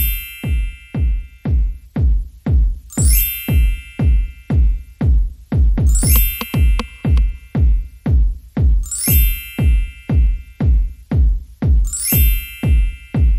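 Electronic dance music with a steady kick drum about twice a second and a bright, chime-like chord stab every three seconds.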